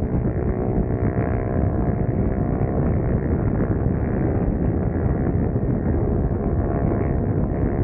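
Husqvarna Svartpilen 401's single-cylinder engine running steadily at highway cruising speed, mixed with heavy wind rushing over the microphone.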